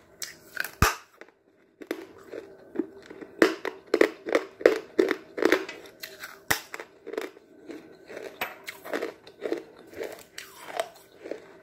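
A person biting and chewing chalk: a string of sharp dry crunches, thickest about three to seven seconds in, then softer repeated chewing crunches.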